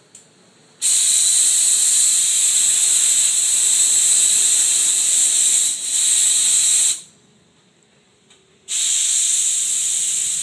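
Compressed air from an air compressor's hose hissing in two long blasts. The first starts about a second in and lasts about six seconds, dipping briefly near its end. After a short pause, the second starts near the end.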